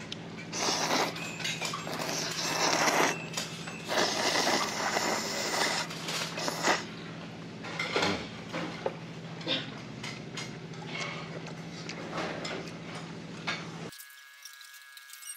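Hand-cut kalguksu noodles being slurped in several long, noisy sucks over the first few seconds, then chewing, with small clicks of chopsticks and a bowl, over a steady low hum.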